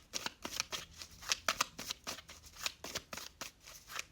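Tarot cards being shuffled and handled by hand: a rapid, irregular run of sharp card snaps and flicks.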